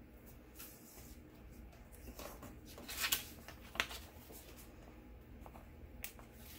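Faint rustling and clicks of paper and stickers being handled on a planner page, with a short louder cluster about three to four seconds in.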